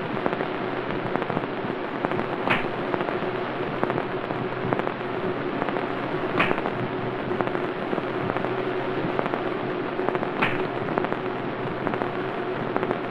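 Loud, steady crackle and hiss of an old, worn film soundtrack over a low hum, with a sharp click about every four seconds.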